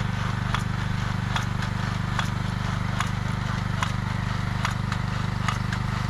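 Small engine of a vegetable transplanter running at a steady speed, with a regular sharp click about every 0.8 seconds from the machine's planting mechanism.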